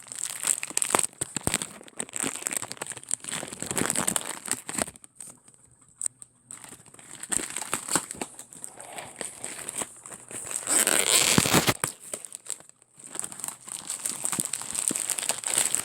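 Plastic wrap of a four-box tissue multipack being crinkled and pulled at while it is torn open, in irregular bursts, with a short pause midway and a louder stretch of about a second two-thirds of the way through.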